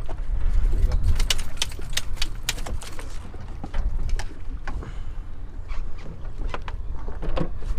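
Knocking and clattering on a small fishing boat's deck over a steady low rumble. A quick run of sharp clicks and knocks comes about one to three seconds in, with a few single knocks later.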